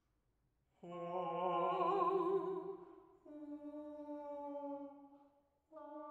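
Mezzo-soprano and bass singing long, quiet held notes unaccompanied, the upper voice with a slow wavering vibrato over the bass. The low voice stops after about two seconds, and a single voice carries on with two more held notes, each after a short break.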